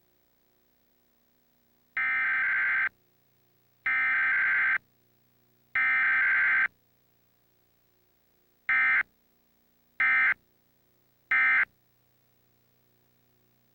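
Emergency Alert System digital data tones, the screeching SAME code bursts: three bursts of about a second each, then three short bursts near the end. These are the alert header sent three times followed by the end-of-message code sent three times, with no attention tone between them.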